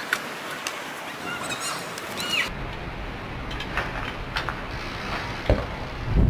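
Outdoor ambience with birds chirping and a few sharp clicks. After about two and a half seconds it changes to a duller ambience with a few knocks and a sharp thump about five and a half seconds in, the tyres of a trials bike hopping and landing.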